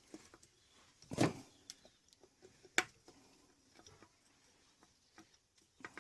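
Scattered light knocks and clicks of metal engine parts and tools being handled, the loudest a knock about a second in and a sharp click near halfway.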